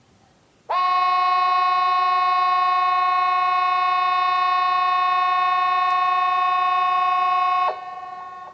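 Hesa Fredrik, the Swedish outdoor civil-defence warning siren, sounding one steady, unwavering blast about seven seconds long. It starts and stops abruptly, and a much fainter tone lingers after the cutoff. The seven-second length matches one burst of the 'Important message to the public' warning signal.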